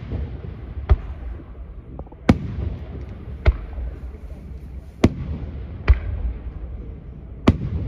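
Aerial firework shells bursting in the sky: six sharp bangs at uneven intervals of roughly a second, each trailed by a low rolling rumble and echo.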